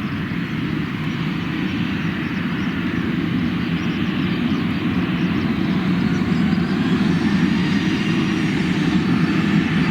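Skymark Airlines Boeing 737-800's jet engines at takeoff power during its takeoff roll, a steady noise growing gradually louder, with a faint rising whine near the end.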